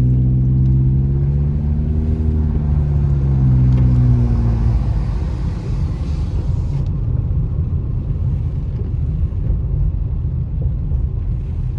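Car engine heard from inside the cabin, pulling away with its pitch rising and then easing off about five seconds in, followed by steady engine and tyre rumble on the wet road.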